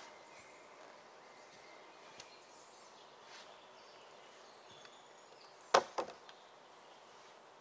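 Two sharp knocks about a quarter of a second apart, the first the louder, over quiet forest ambience with faint bird calls.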